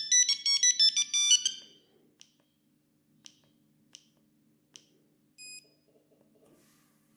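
Siemens S35 mobile phone playing a ringtone melody of quick electronic beeping notes, one note at a time, that stops about a second and a half in. Four faint clicks follow, then one short beep.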